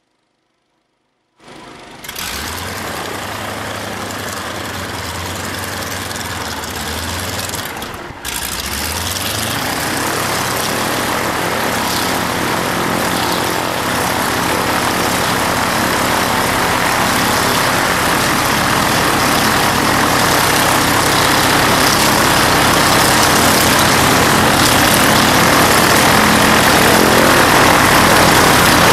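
Rotec radial engine and propeller of a Sopwith Pup replica running on the ground. The sound comes in about a second and a half in and runs steadily, falters briefly near eight seconds, then runs up, rising steadily in pitch and loudness.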